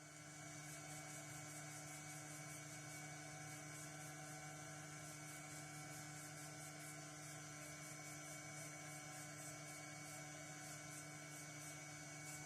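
A steady, faint electrical-sounding hum made of several fixed tones, with an even hiss over it.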